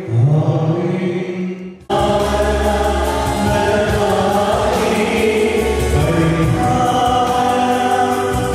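Choral singing with full instrumental accompaniment. A held sung note fades over the first two seconds, then the music cuts abruptly into a louder passage with a strong bass.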